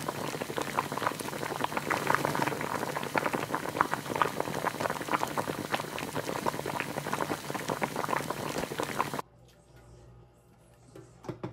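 Thick, creamy pasta soup boiling in a stainless steel pot on an electric stove: a dense, steady bubbling and popping that cuts off suddenly about nine seconds in, followed by a few faint knocks near the end.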